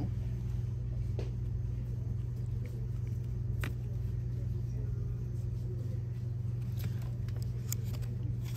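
Steady low hum of a store's background noise, with a few faint clicks from the plastic blister pack of a pair of scissors being handled.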